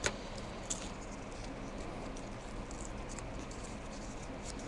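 Faint rustling and crinkling of paper as the backing is peeled off self-adhesive wallpaper. There is a sharp tick right at the start and a smaller one under a second in, over a steady low hiss.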